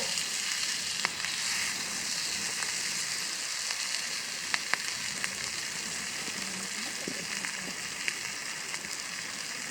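Food sizzling steadily in a hot pan over a campfire, a constant hiss with a few sharp pops scattered through it.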